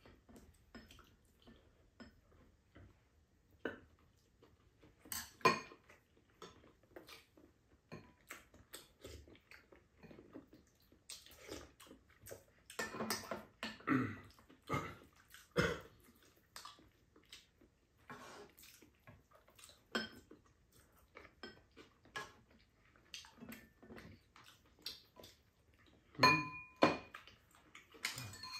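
Chopsticks and spoons tapping and scraping against ceramic bowls during a meal: scattered light clicks, with a louder ringing clink about five seconds in and another near the end.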